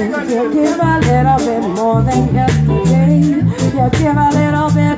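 Live reggae band playing: a woman sings the lead vocal over electric bass, drum kit and keyboards, with regular percussion hits keeping a steady beat.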